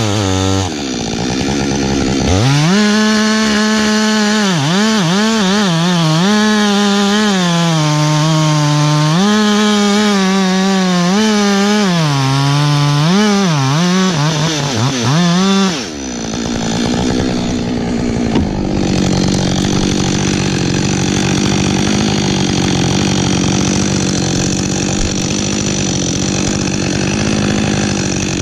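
Gas chainsaw engine running hard. Near the start it falls back briefly toward idle, then it is revved up, and its pitch sags and recovers again and again as the chain loads in the wood. About 16 seconds in it dips once more, then runs on at a steadier pitch with a rougher rasp of cutting.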